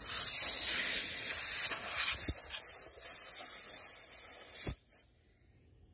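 Compressed-air blow gun hissing as it blows dust and debris off a chainsaw's cylinder and engine housing, cutting off abruptly near the end.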